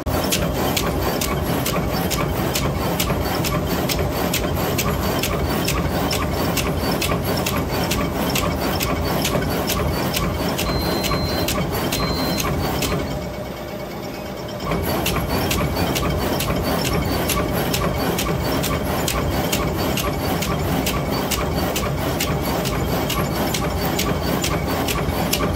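Automatic wire-processing machine running, its head cycling in a fast, even beat of several clacks a second over a mechanical drone. It drops off for about a second and a half just past the middle, then comes back to full speed.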